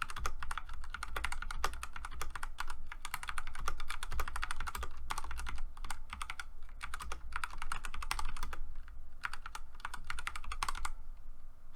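Typing on a Redragon K552 Kumara mechanical keyboard: rapid key clicks in quick runs, with short pauses between runs.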